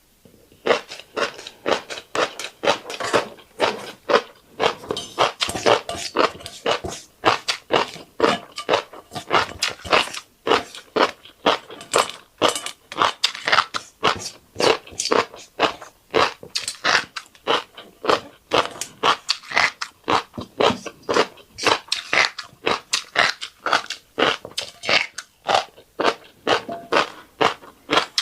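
A person chewing mouthfuls of fish roe and rice: rapid, continuous crunching clicks, several a second.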